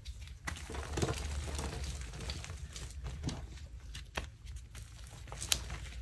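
Soft, undercooked block of reformed gym chalk crumbling and crunching as hands squeeze and break it apart, with chalk powder falling away. One sharper crack comes near the end.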